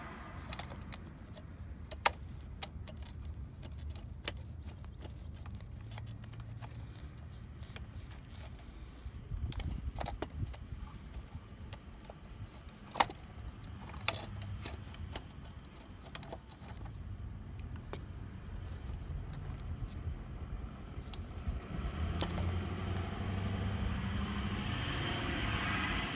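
Scattered sharp clicks and light rattles from handling a fuel pump assembly: the plastic strainer sock and its small plastic retaining clip being worked off the pump. A low rumble sits under them and grows louder near the end.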